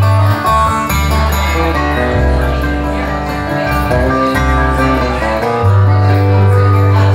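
Live band playing an instrumental passage of a slow song, guitar over sustained bass notes that change every second or so.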